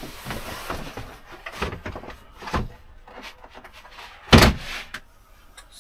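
Light knocks and clatter from the fittings of a camper van's bathroom being handled, with one loud bang about four seconds in, like a panel or door knocking shut.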